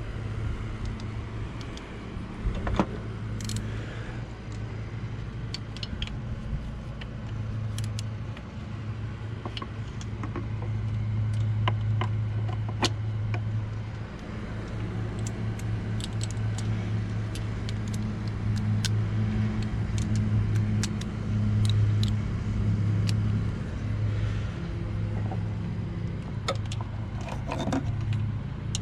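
Scattered metallic clicks and clinks of hand tools, a socket and ratchet working at 10mm bolts on the thermostat housing, over a steady low hum.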